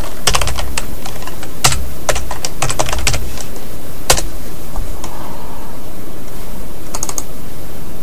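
Computer keyboard typing: quick clusters of key clicks in the first few seconds, a single sharper click about four seconds in and a short burst of clicks near the end, over a steady hiss.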